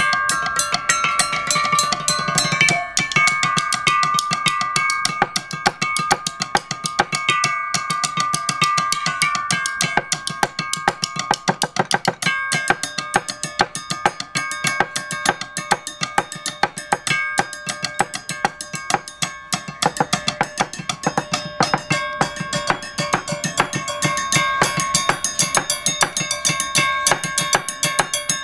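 Rows of square steel tube sections struck rapidly with round-headed mallets by two players: a dense, continuous stream of metallic strikes, each tube ringing on at its own pitch so that several tones overlap.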